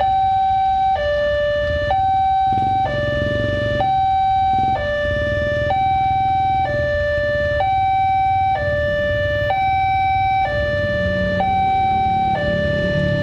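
Railway level-crossing warning alarm sounding a steady two-tone high-low signal, each tone held about a second, warning that the barrier is down and a train is due.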